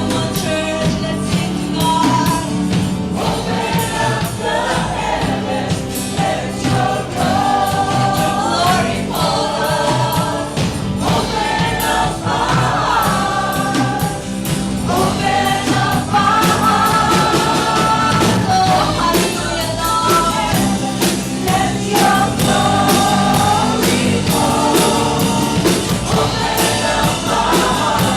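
A church worship team and congregation singing a contemporary worship song together with a full band, with a steady drum beat under the group vocals.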